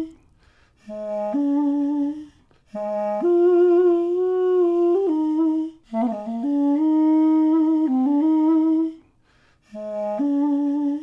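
A solo melodic line of held, steady notes in short phrases. Each phrase often starts on a lower note and steps up, with brief pauses between phrases. This is a sound file played back through a Max/MSP patch, feeding the audio-reactive graphics.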